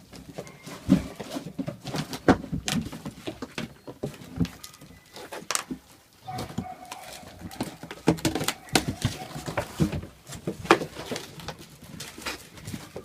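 Puppies playing with cardboard boxes and toys, making irregular knocks, clicks and rustles as they chew and toss them, with a few soft puppy vocal sounds.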